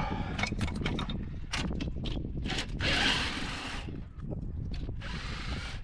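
Irregular clicking and clattering of hand tools on an engine, over a rough low rumble, with three bursts of hiss: one at the start, a longer one around the middle, and one near the end.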